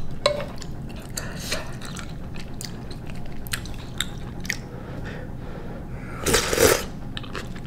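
Close-up eating sounds: chewing with small mouth clicks, then a loud slurp of ramen broth from a spoon about six seconds in.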